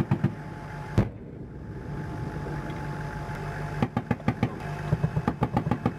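Machine gun on an M1 Abrams tank's turret firing: a burst that ends just as the sound begins, a single shot about a second in, then rapid bursts of about nine rounds a second over the last two seconds. The tank's engine runs steadily underneath.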